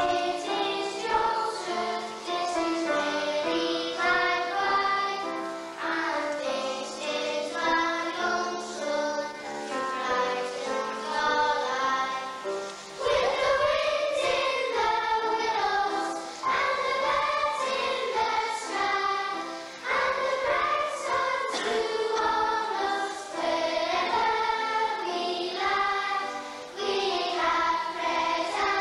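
Children's school choir singing a hymn in unison, one phrase running on into the next.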